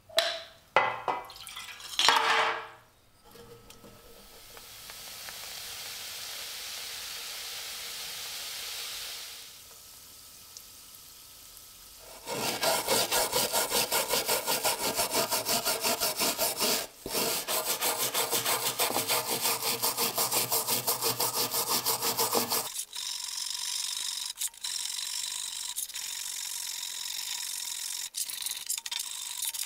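A small hand brush scrubbing a wet, rusty iron axe head in a steel tray of foamy liquid, in quick back-and-forth strokes several a second, lighter near the end. Before the scrubbing there are a few sudden loud knocks, then a fizzing hiss.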